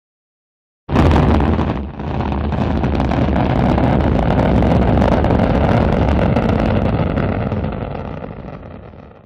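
Rocket launch noise: a loud, deep rumble that comes in suddenly about a second in, holds steady, and fades away near the end.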